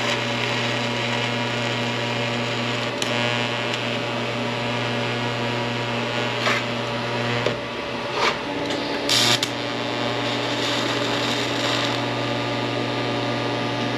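TIG welding arc buzzing steadily as filler rod is fed in, filling a plasma cut that strayed off the line. The buzz weakens briefly a little past halfway and comes back slightly higher, with a few short crackles and hisses along the way.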